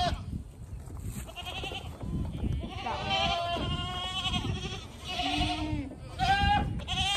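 Goats bleating repeatedly, several calls in a row with short gaps, one of them deeper about five seconds in.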